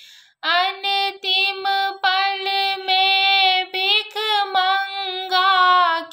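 A woman singing a Maithili Maheshvani, a devotional song to Shiva, solo and unaccompanied in a high voice, holding long notes with short breaths between phrases; she comes in after a brief pause at the start.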